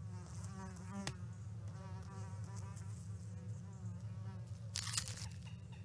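A housefly buzzing in a steady drone whose pitch wavers up and down as it flies about. A sharp click comes about a second in, and a short hissing burst near the end.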